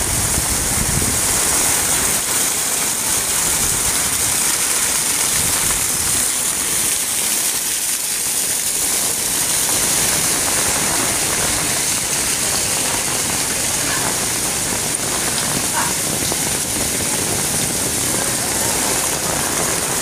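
Torrential monsoon rain hissing steadily on a flooded street and parked cars, with water pouring in sheets off a roof edge close by.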